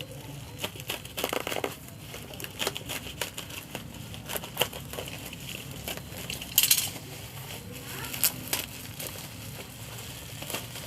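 Courier package and bubble wrap being opened by hand: irregular crinkling and crackling of plastic, with a louder rustle about two-thirds of the way through.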